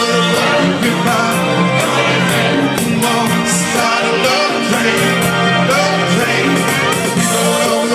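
A man singing live through a microphone and PA over music with a steady bass line and drum beat.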